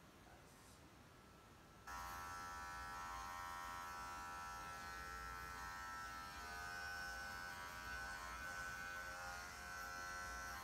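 Electric dog grooming clippers switched on about two seconds in and running steadily, shaving the hair from inside a dog's ear, the tone shifting slightly now and then as the blade works.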